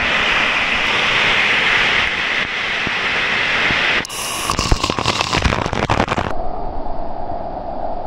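A waterfall pours close to the microphone with a loud, steady rushing. About four seconds in, spray and drops strike the camera directly, adding a dense run of crackling pops and knocks. Near the end the sound drops to a duller, muffled rush.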